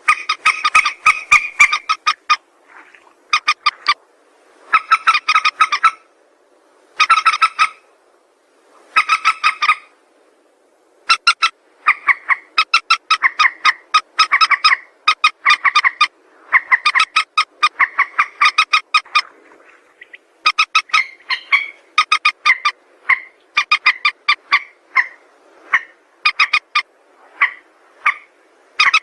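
Mandar sawah, a rail, calling in rapid runs of sharp, clucking notes, one bout after another with short pauses between them.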